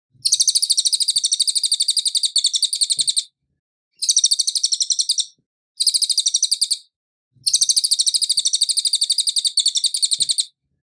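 Cililin songbird singing: four bursts of rapid, high, chattering notes separated by brief pauses, the last burst a repeat of the first.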